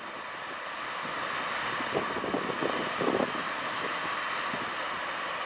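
Steady hiss of escaping steam from a Kitson & Co 0-6-0T steam locomotive in steam, with a few light knocks about two to three seconds in.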